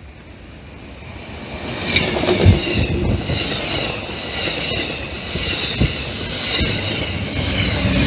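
Amtrak Downeaster passenger train passing at speed, growing loud over the first two seconds. Steel wheels drum over the rails with low clickety-clack thumps, the strongest about two and a half seconds in, and a high, wavering wheel squeal. The pushing diesel locomotive comes by near the end.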